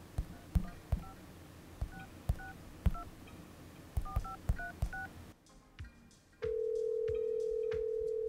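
Telephone keypad being dialed: about ten button presses at an uneven pace, each a soft knock with a short two-note touch tone. After a brief pause a single steady tone sounds for about two seconds and cuts off suddenly.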